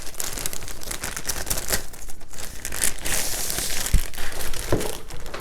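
Packaging wrap crinkling and rustling in irregular crackles as a keyboard is unwrapped, with a denser rustle a little past the middle.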